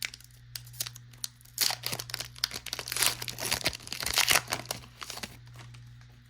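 A Pokémon card booster pack's foil wrapper being torn open and crinkled: a dense run of crackling tears and rustles, heaviest in the middle and dying down near the end.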